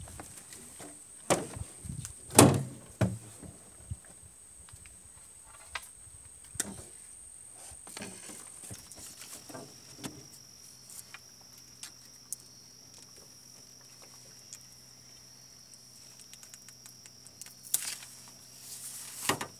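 Knocks and thumps on an aluminium boat hull, the loudest about two seconds in, over a steady high-pitched insect drone; a faint low hum comes in about ten seconds in.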